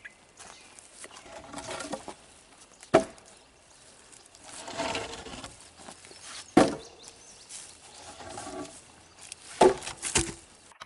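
Long split hardwood pieces being stacked by hand. Three loud wooden knocks, about three seconds apart, as pieces land on the pile, with a smaller knock just after the last. Between them, softer scraping and rustling of wood being handled.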